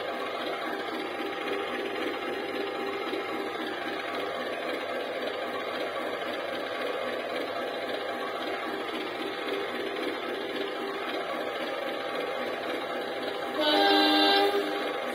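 HO-scale CC 201 model diesel locomotive running with a steady engine hum as the engine warms up. Near the end it sounds its horn once, for about a second.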